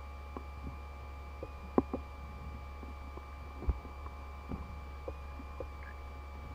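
Underwater recording of barbel feeding over a gravel riverbed: irregular clicks and knocks, the loudest about two seconds and three and a half seconds in, over a steady low electrical hum with several faint high whining tones.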